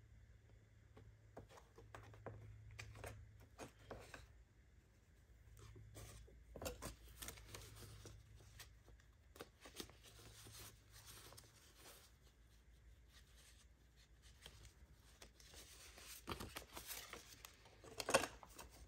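Paper banknotes being handled: faint, scattered rustles and light taps as dollar bills are sorted and swapped, with a louder rustle near the end.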